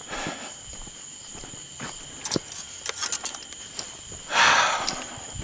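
Footsteps and scuffs on a concrete bridge deck, with scattered light clicks, over a steady high insect chorus at two pitches. A short, loud rush of noise comes about four seconds in.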